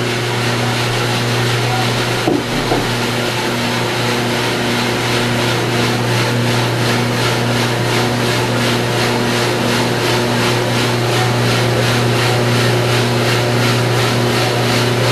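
Commercial drum coffee roaster running: a steady whir and low hum from its motor and fan, with an even pulsing about two or three times a second from the turning machinery. A single short knock comes about two seconds in.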